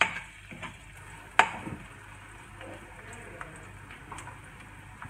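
Metal spatula knocking and scraping against a nonstick wok as minced garlic is stirred while it browns in hot oil, over a faint sizzle. The sharpest knock comes about a second and a half in, with lighter taps scattered after it.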